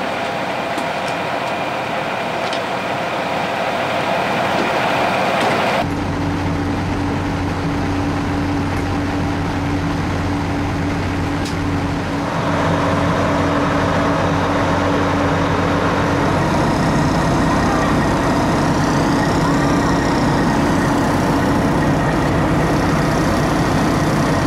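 Steady drone of idling emergency-vehicle engines, with a constant low hum. The background shifts abruptly about six and twelve seconds in. A faint wavering high tone comes in during the second half.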